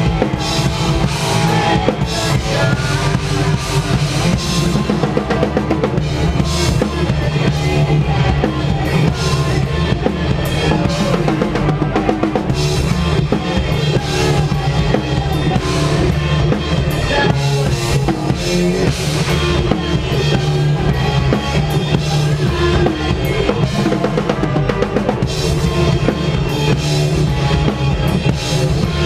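Post-hardcore band playing loud and without a break: a driving drum kit with heavy bass drum under guitar and bass.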